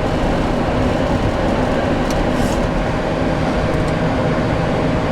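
Boeing 737-800 cockpit noise while the aircraft slows on the runway after touchdown: a steady low rumble of the CFM56 engines, airflow and wheels on the runway, with a steady hum over it.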